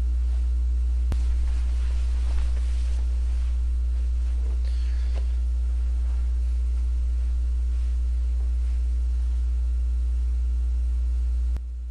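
A steady, loud low electrical hum, like mains hum on the audio line, with a faint hiss over it. A click about a second in; near the end another click and the hum drops sharply in level.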